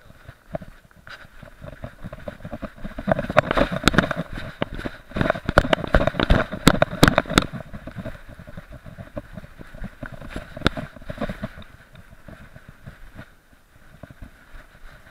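Knocking and rubbing of an SJ4000 action camera jostled on a moving dog's chest harness: a dense run of knocks from about three to seven and a half seconds in, thinning out after that.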